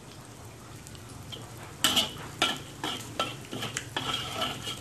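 A metal spatula scrapes and knocks against a pan, stirring fried shallots, garlic and chili in hot oil, which sizzles. For about the first two seconds there is only a low, steady sizzle. Then come scraping strokes about twice a second.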